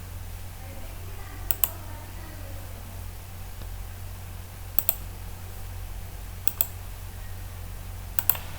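Computer mouse clicking in quick pairs, four times, over a steady low electrical hum.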